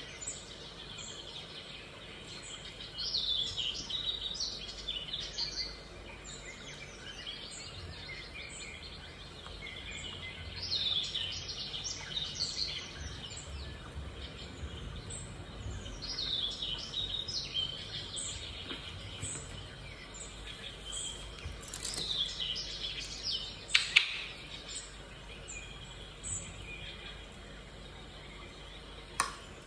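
Birds chirping and trilling in short spells of quick high notes over a steady low background noise, with one sharp click late on.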